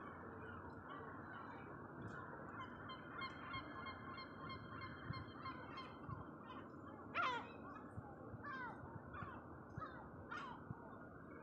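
Gulls calling repeatedly, short cries that fall in pitch, the loudest about seven seconds in, over a steady background noise.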